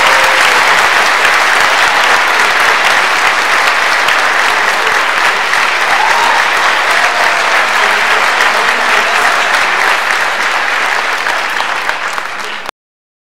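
Audience applauding steadily, a dense clapping that fills the hall; it cuts off abruptly near the end.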